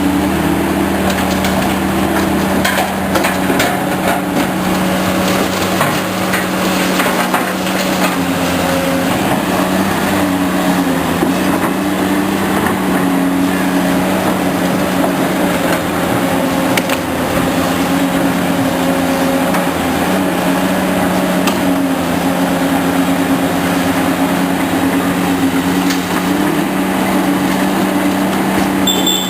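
Heavy construction machine's diesel engine running steadily under load, its pitch shifting slightly, with scattered knocks and clanks early on from the machine at work.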